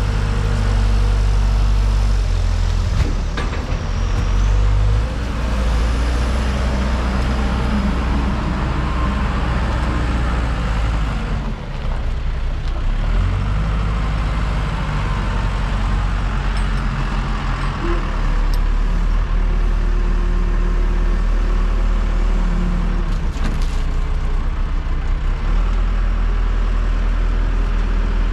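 A JLG 10/55 telehandler's diesel engine running under load, its speed rising and falling several times as the machine drives and lifts.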